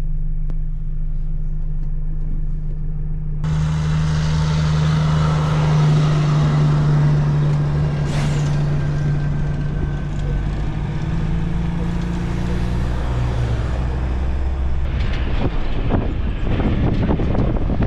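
Road train passing on a gravel track: a heavy diesel engine drone and tyre noise on the dirt come in suddenly a few seconds in and fade away after about ten seconds. Wind buffeting the microphone follows near the end.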